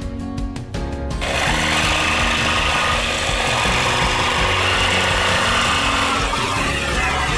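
Cordless jigsaw cutting through a thin board template. It starts about a second in, runs steadily and eases off near the end, over background music.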